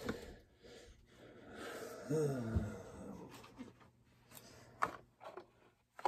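A man's breathy exhale about a second and a half in, ending in a short grunt that falls in pitch, then a few faint clicks and taps from handling saw parts.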